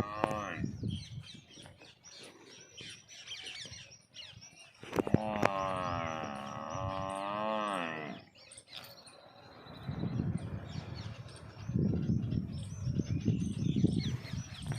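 A Murrah buffalo gives one long, wavering call for about three seconds, starting about five seconds in, while small birds chirp. Near the end there is a stretch of low rumbling noise.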